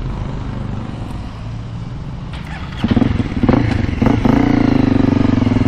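Honda CRF250M's single-cylinder engine being restarted after stalling: it fires about three seconds in with a couple of quick revs, then settles into a steady idle. The stall comes when decelerating without blipping the throttle.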